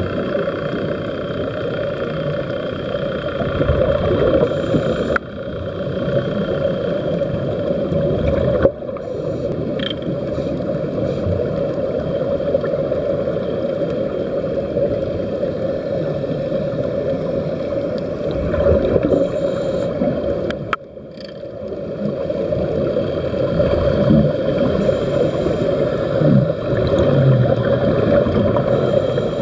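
Steady, muffled underwater rumble and hiss, with air bubbling from the air-fed helmets of helmet divers; the low rumble is the dive boat's engine and air supply carried through the water. It cuts out briefly a few times.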